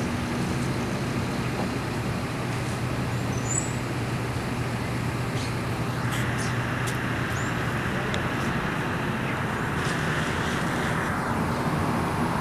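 Steady motor vehicle noise with a low, even engine hum, growing a little brighter about six seconds in.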